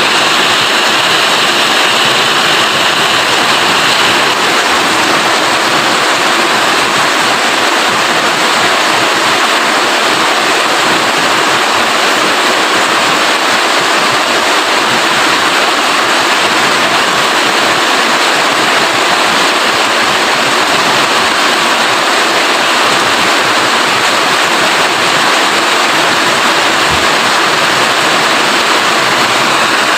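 Steady rain falling hard, a loud, even hiss with no let-up.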